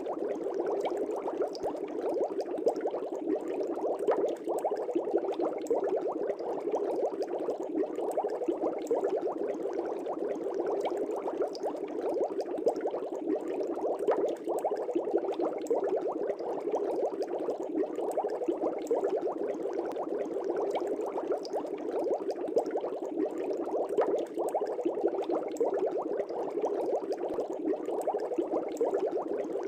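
Air bubbles rising through aquarium water, bubbling steadily and without a break, with a fine rapid patter of tiny pops.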